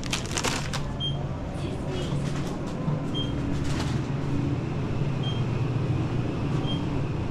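Short, high electronic beeps, about five of them a second or two apart, like items being scanned at a store checkout. They sit over a steady low hum, with a little rustling of packaging near the start.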